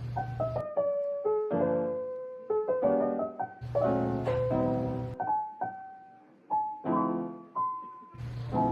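Background music: a mellow piano-like keyboard part playing chords and single held notes over a steady low bass, which drops out for a moment about half a second in and again for a few seconds past the middle.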